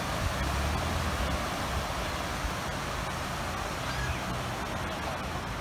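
Steady wash of small surf on a sandy beach, with an uneven low rumble of wind on the microphone.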